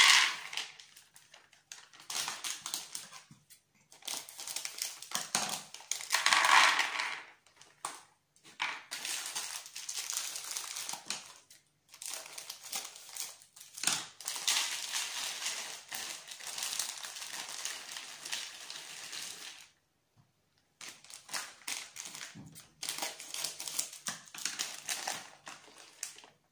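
Plastic snack packets crinkling as they are handled and opened, and nuts and dried fruit pouring and rattling into a plastic divided dish, in irregular stretches with short pauses and a few sharp clicks.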